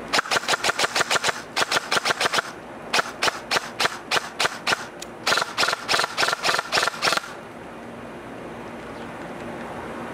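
G&G TR16 MBR 308WH airsoft electric rifle firing on full auto, several bursts of rapid shots at about eight a second, the gearbox cycling with each shot; the firing stops about seven seconds in.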